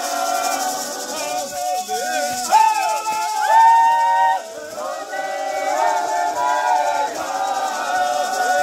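A Xukuru-Kariri dance chant: a group of voices singing together, with gourd maracas shaken steadily throughout. A louder, long-held note rises out of the singing a few seconds in.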